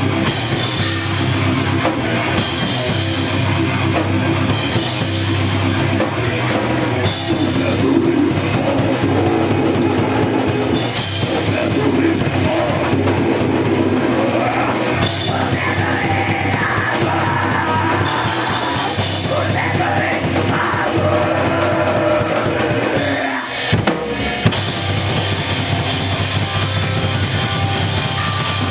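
Rock band playing live with electric guitar, bass guitar and a drum kit. About 23 seconds in the band cuts out for a moment, then comes back in.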